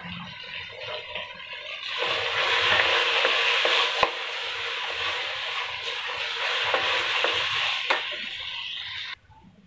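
Wooden spatula stirring and scraping rice and chana dal as they fry in oil in an aluminium pressure cooker, with a steady sizzle and a few knocks of the spatula against the pot. It grows louder about two seconds in and cuts off suddenly near the end.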